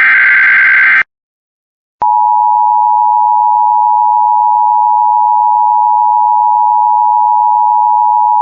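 The end of an Emergency Alert System SAME header data burst, which cuts off about a second in. After a second of silence, the two-tone EAS attention signal starts and holds steady and loud, announcing a severe thunderstorm warning.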